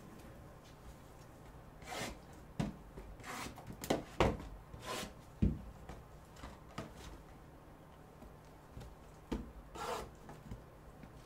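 Gloved hands handling sealed, plastic-wrapped cardboard trading-card boxes: scattered rubbing and rustling scrapes, with a couple of dull thuds about four and five and a half seconds in as boxes are shifted and set down.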